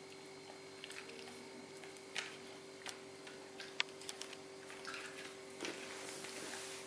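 Siberian Husky puppy gnawing a rawhide bone: irregular clicks and crunches of teeth on the rawhide, a few sharper snaps among them.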